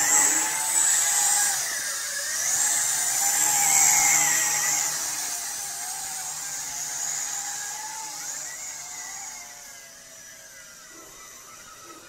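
WLToys V666 toy quadcopter's motors and propellers whining, the pitch wavering up and down. Loudest in the first few seconds while it is close, then fading as it flies farther off.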